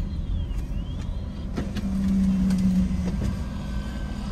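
Car moving slowly, heard from inside the cabin: a steady low engine and road rumble, with a steady low hum rising over it from about a second and a half in for roughly a second and a half.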